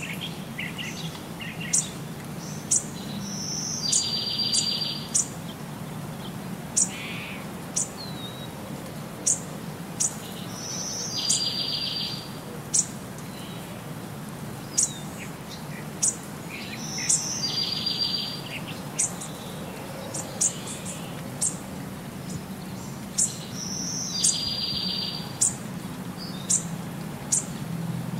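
Birdsong: short, sharp high chirps about once a second, with a buzzy trill lasting about a second that returns about every seven seconds, over a low steady hum.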